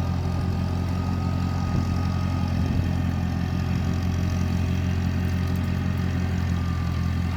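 An engine running steadily at constant speed, a low, even drone.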